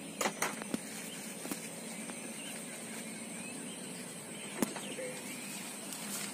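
Morning outdoor ambience of birds chirping, over a steady high-pitched whine. A few sharp clicks near the start and once about four and a half seconds in.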